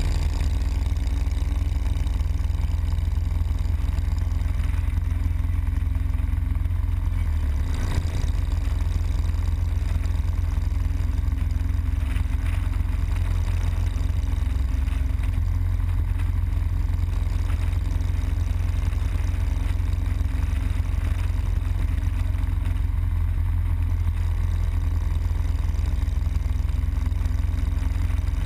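Harley-Davidson Road Glide Custom's V-twin engine running steadily at highway cruising speed, under heavy low wind rumble on the bike-mounted microphone. One brief bump about eight seconds in.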